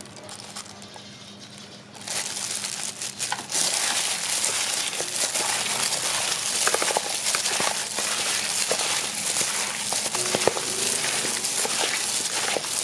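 A thin plastic bag worn over a hand crinkling as it mixes and squeezes seasoned chopped pork ribs in a plastic bowl. It starts about two seconds in and grows louder a second or so later, a steady dense crackle with many small clicks.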